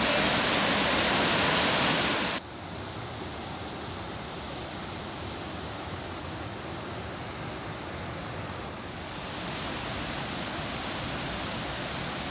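Waterfall rushing as a steady, loud hiss of falling water. It cuts off abruptly about two seconds in, and a quieter, steady rush of water follows.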